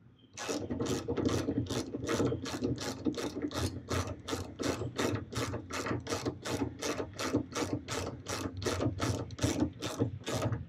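Hand ratchet with an Allen socket clicking in short, even strokes, about three or four clicks a second, as it runs a bolt into a dipstick adapter against the drag of Teflon tape on the threads.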